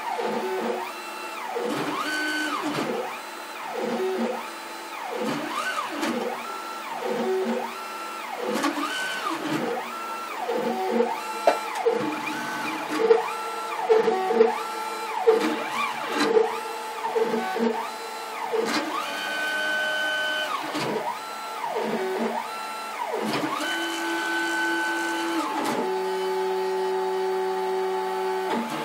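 Stepper motors of a home-built CNC router, 275 oz-in motors on a 24-volt supply, running a test toolpath of pockets. Each move is a pitched whine that ramps up, holds and ramps down, with rising-and-falling arcs of pitch as the axes trace circles, and one steadier, lower tone held for a couple of seconds near the end.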